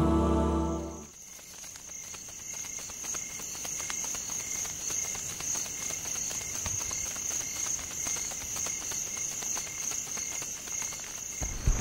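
Crickets chirping steadily after a chanted vocal piece fades out in the first second. A soft low thump comes near the end.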